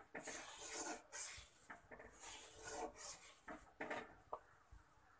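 A metal spatula stirring thin soup in a steel kadhai, scraping against the pan's sides and bottom in faint, repeated strokes that stop about four seconds in.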